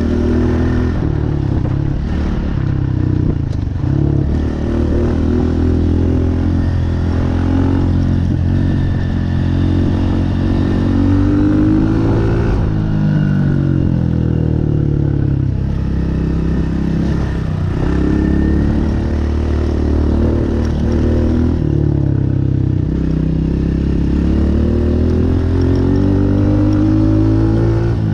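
Honda CRF125F big wheel's single-cylinder four-stroke engine under way, its pitch rising and falling over and over as the throttle is opened and shut through the gears.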